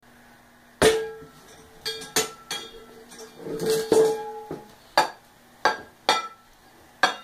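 A spoon banging irregularly against something hard: about nine sharp metallic clinks, each ringing briefly, with a quick rattling cluster near the middle. The first strike is the loudest.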